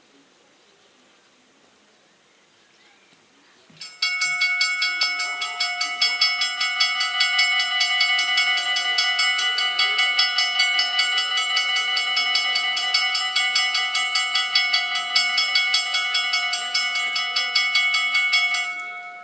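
Two electric warning bells of a Dutch automatic level crossing (AOB) start up suddenly about four seconds in and ring with rapid, even strokes. They stop near the end as the barriers reach the down position.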